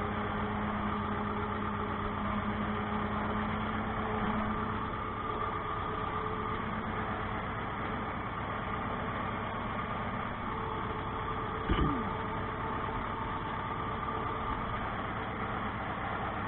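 Ursus C-360 tractor's diesel engine running steadily under light load while pulling a potato hiller, heard from inside the cab; the engine is still being run in. A single short knock sounds about twelve seconds in.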